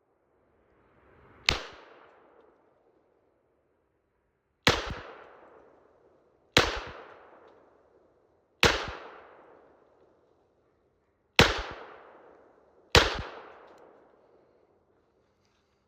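Glock 21 Gen 4 pistol firing .45 Auto rounds, six single shots at an unhurried, uneven pace, each trailing off in an echo that lasts about a second.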